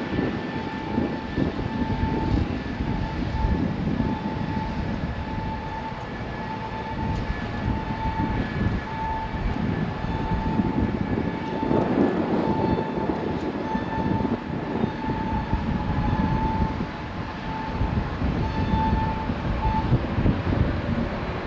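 Airbus A320 jet engines at takeoff thrust during the takeoff roll, heard from a distance: a low rumble with a fluttering whine that comes and goes and fades out shortly before the end.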